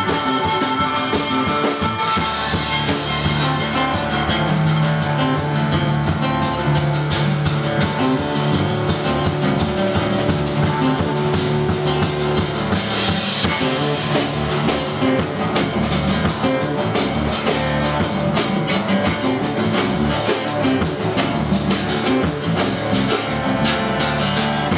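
Rock band playing: drum kit and electric guitar over a sustained bass line, continuous and loud.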